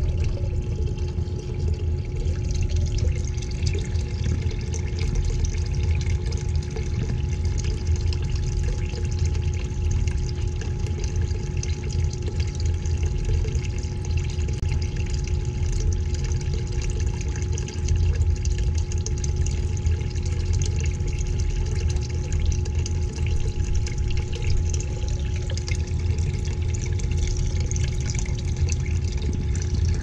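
Small submersible pump in a bucket of vinegar running with a steady hum, while liquid pours back into the bucket from the return hose. This is a tankless water heater's descaling flush circulating once the pump has been primed.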